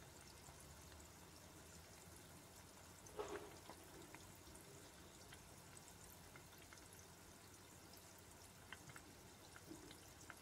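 Frozen beef kroket deep-frying in hot oil in an electric deep fryer: faint bubbling and sizzling with scattered small crackles, and one louder pop about three seconds in.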